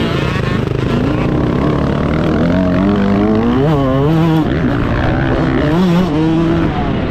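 Yamaha YZ125's two-stroke single-cylinder engine revving hard, heard from on board, its pitch climbing and falling several times as the throttle opens and closes.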